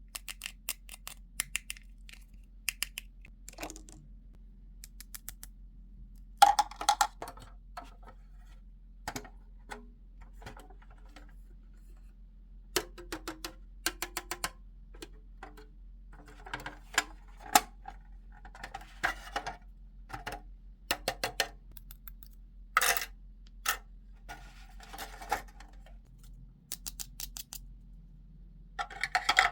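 Hands handling small plastic toy pieces and packaging: irregular clicks and taps with short crinkling rustles, loudest about six seconds in and again near twenty-three seconds.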